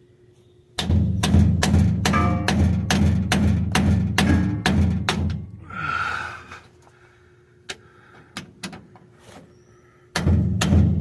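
Steel hammer blows, about three a second, driving a bearing race into a rear differential housing. The blows stop a little past the middle, with only a few light taps, and start again near the end.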